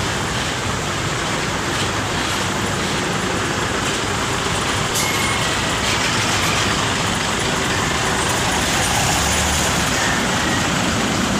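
Coach bus engine running steadily amid road traffic noise, with a faint click about five seconds in.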